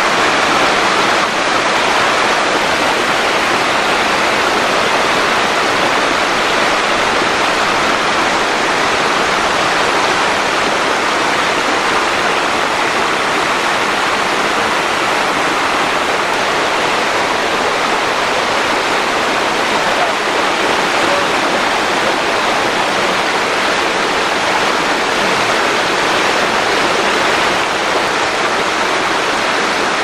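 Amidagataki, a waterfall about 60 m high, pouring into its plunge pool: a loud, steady rush of falling water.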